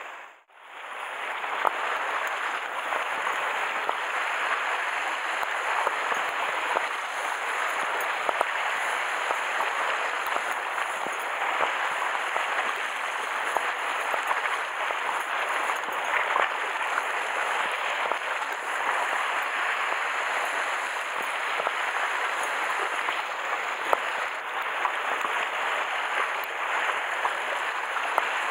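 Steady hiss of sea water washing and fizzing against a rocky shore, with faint small clicks through it; it fades in after a brief dip at the start.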